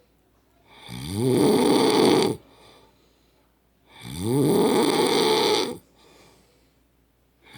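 A man snoring loudly, two long snores about three seconds apart, each starting with a rising pitch and followed by a faint breath out. A third snore begins right at the end.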